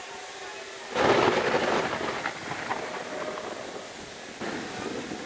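Rain falling steadily, with thunder swelling suddenly about a second in and slowly fading, and a smaller surge near the end.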